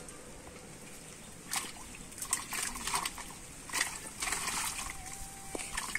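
Water splashing and trickling in a run of short, irregular bursts, starting about a second and a half in.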